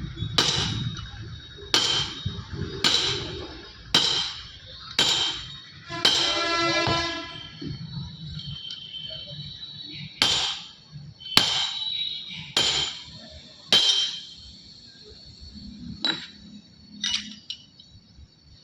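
Hammer striking metal at a steady pace, about one blow a second, each blow with a high metallic ring; one longer ringing note about six seconds in.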